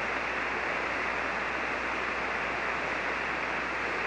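Steady hiss of band noise from an HF receiver tuned to single sideband on the 40-meter band, cut off at the top of the voice passband, heard between transmissions.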